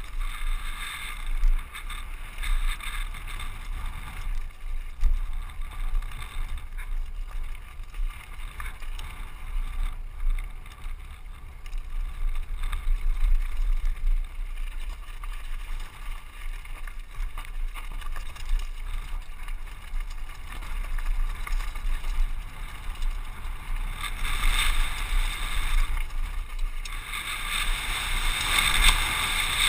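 Mountain bike rattling and crunching over a loose, rocky dirt trail, with wind rumbling on a helmet-mounted camera's microphone. The harsh rattling swells briefly about three-quarters of the way through and again near the end.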